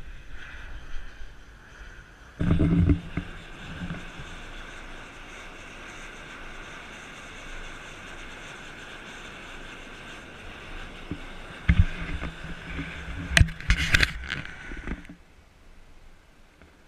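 Fumarole steam vent hissing steadily, with loud bumps on the microphone about two seconds in and again near the end.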